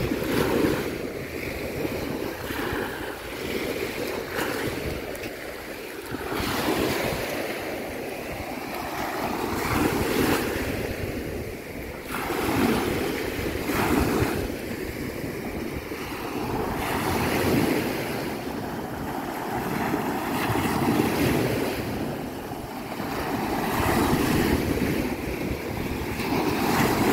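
Small waves lapping and breaking on a sandy beach, the wash of the surf swelling and fading every few seconds.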